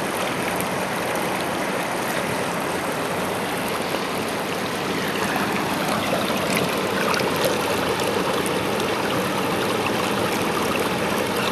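Steady rushing of running water, an even hiss-like wash that holds level throughout.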